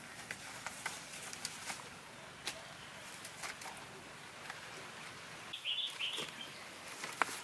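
Light rustling and scattered small clicks from jackfruit being handled and set into a woven bamboo basket on leaf litter. There is a short high scratchy sound about six seconds in.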